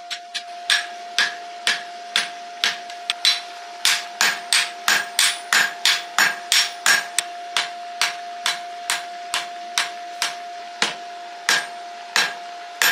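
Hand hammer striking red-hot steel bar stock on an anvil, forging a draft horseshoe: a steady run of sharp blows, about two to three a second, with a brief pause about three-quarters of the way through. A steady high hum runs underneath throughout.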